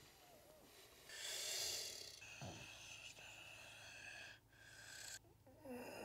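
A person breathing hard through the nose, with a sharp rushing breath about a second in, the loudest moment: the breath of someone in pain while a wound is stitched.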